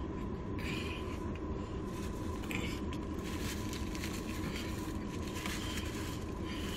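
Close-miked chewing of a mouthful of food: soft, irregular wet mouth sounds over a steady background hiss.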